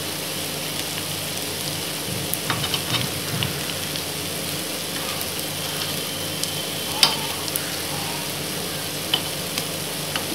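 Kuzhi paniyaram sizzling steadily in hot oil in the wells of a paniyaram pan. A few light clicks come from a spoon knocking the pan as the dumplings are turned over.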